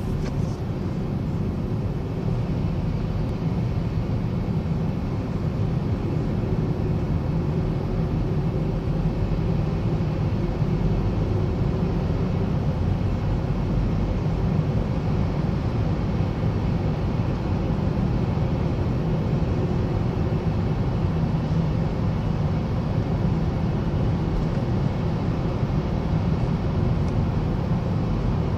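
Road traffic inside a vehicle tunnel: a steady low rumble of passing vehicles, with no distinct events standing out.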